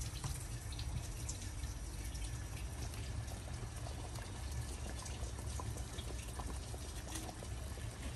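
Hot khash broth being ladled from a simmering pot and poured into a ceramic bowl: a steady liquid pouring and trickling sound with many small splashes and clicks, over a low rumble.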